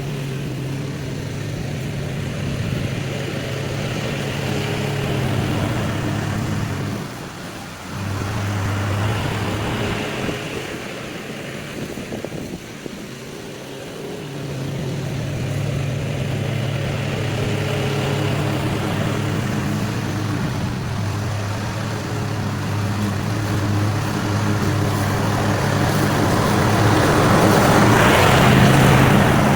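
Small petrol engine of lawn equipment running steadily under changing load, easing off briefly twice and getting louder near the end.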